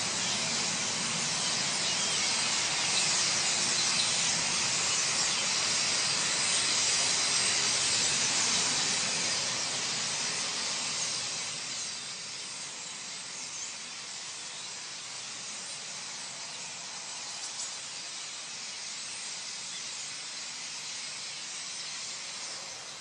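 A huge murmurating flock of common starlings, its massed calls and wingbeats blending into a dense, steady hiss. It falls away noticeably about halfway through as the flock moves off.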